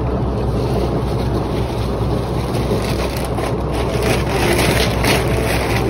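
Wind buffeting the microphone over the steady low rumble of a moving vehicle, as heard while riding along.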